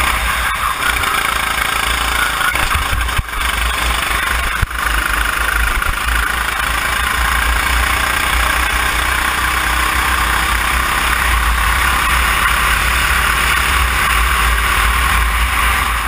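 Kart engine running at speed, its note drifting up and down through the corner, under loud wind rush on the onboard camera's microphone.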